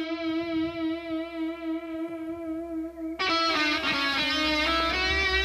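Background guitar music: one long wavering note is held, then from about three seconds in the guitar moves into a run of notes.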